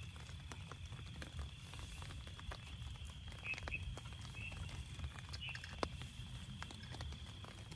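Raindrops pattering irregularly on a tent's fabric over a low rumble. A steady high drone runs underneath, and a few short high chirps come about midway and again near the end.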